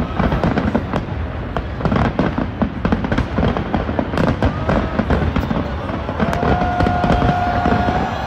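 Large fireworks display: rapid crackling and popping from many shells at once over a steady low rumble of bursts. About six seconds in, a steady held tone joins.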